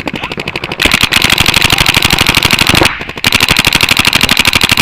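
Paintball markers firing rapidly in long, ramping strings of shots, a sharp rattle of many shots a second, with a brief break about three seconds in before the firing resumes.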